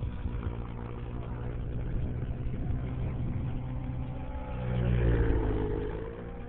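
Align T-Rex 700 nitro R/C helicopter, its .90-size glow engine and rotors running with a steady whine over a low rumble. About five seconds in it gets louder and its pitch dips, then comes back up.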